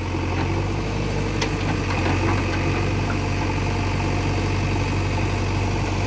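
Diesel engine of a JCB 3DX backhoe loader running steadily as the backhoe arm works to drag soil off a tipper lorry's raised bed.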